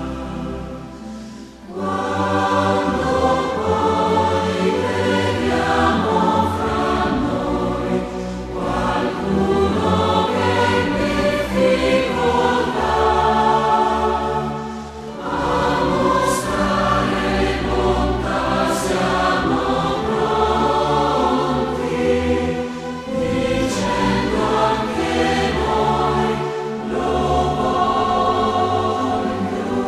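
Choral music: a choir singing slow, held phrases, with a brief pause about a second and a half in and another midway.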